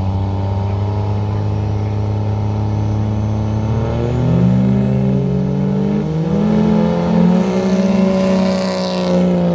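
Two diesel pickup trucks drag racing: engines running steadily on the line, then launching and accelerating hard, their pitch climbing, dipping once at a gear change, then climbing again as they pass.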